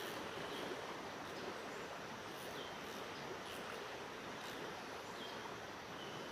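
Steady rush of flowing river water, with several short high chirps scattered through it.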